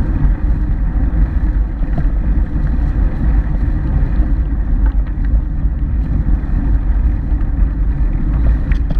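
Wind buffeting the microphone of a camera riding on a moving bicycle: a steady, rough low rumble.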